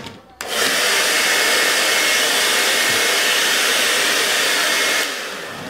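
Handheld electric hair dryer switched on and blowing steadily, an even rushing noise with a faint high whine. It starts abruptly about half a second in and drops away about five seconds in, fading out as it stops.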